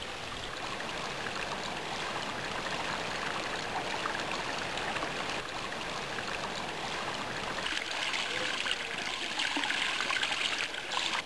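Running water trickling into a garden pond: a steady splashing hiss that grows a little louder over the last few seconds.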